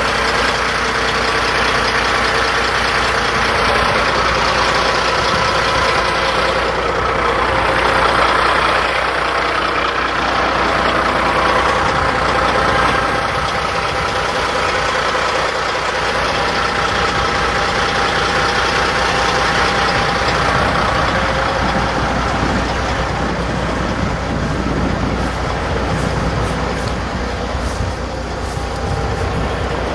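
Diesel garbage truck engine idling, loud and steady.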